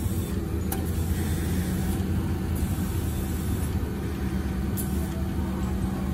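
Air hissing steadily through the hose of a portable air tank into a car tyre while its inflate button is held and the pressure rises. A steady low mechanical hum runs underneath.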